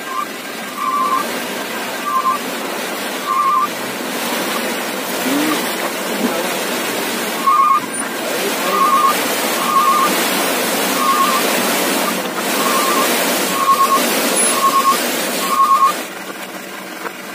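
Dump truck tipping a load of earth and stones from its raised bed: a steady rushing noise of engine and sliding load. A short, high chirping beep repeats about a dozen times, roughly once a second in the second half.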